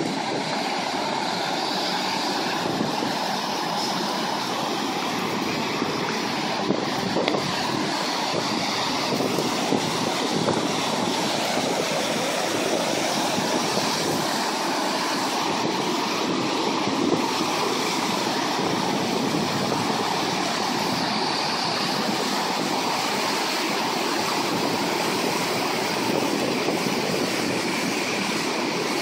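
Steady rush of fast-flowing floodwater, an even noise that goes on without a break.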